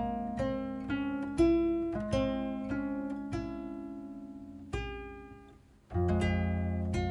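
Background music: acoustic guitar playing plucked notes and chords, fading almost to nothing about five and a half seconds in before a new chord comes in.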